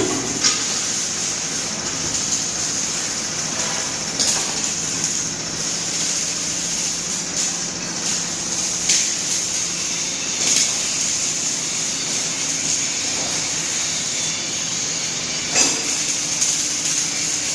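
Steady hiss from a welding robot's torch at work, with a few sharp clicks now and then.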